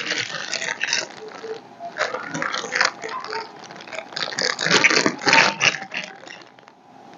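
Loose buttons clattering and clicking as a hand rummages through them, in irregular bursts that die away near the end.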